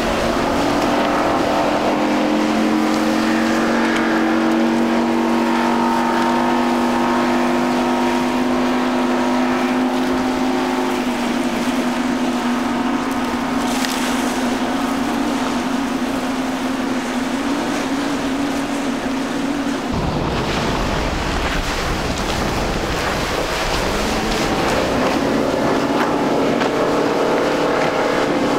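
Single 200 hp outboard motors on center-console boats running at speed through rough inlet water, with the hiss of spray and wind. The engine note of the first boat, a Mercury, holds steady and climbs slightly over the first ten seconds. About twenty seconds in the sound changes abruptly to the next boat, a Yamaha, whose engine note rises near the end.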